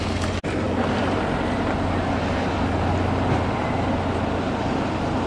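Steady rushing background noise over a low, even hum, with a brief dropout about half a second in.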